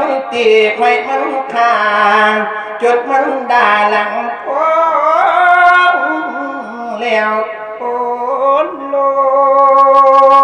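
A man singing Thai verse in a melodic chanting style through a microphone. The line slides up and down between notes and ends on a long held note.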